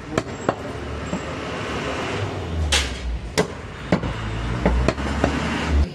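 Butcher's cleaver chopping goat meat on a wooden stump block: a series of sharp, irregularly spaced knocks. A steady low rumble runs underneath.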